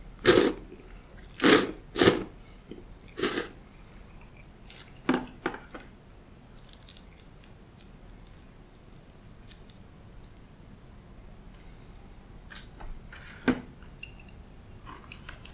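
A man slurping thick udon noodles: four loud slurps in the first three and a half seconds and a weaker pair about five seconds in, then quieter chewing.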